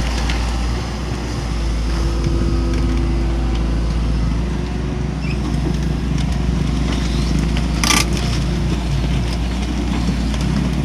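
Hitachi excavator's diesel engine running steadily under load while it lifts timber piles, with one sharp knock about 8 seconds in.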